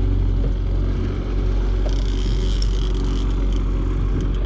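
Fishing boat's engine running steadily with a low hum. From about two to three and a half seconds in, a higher whirring hiss rises over it.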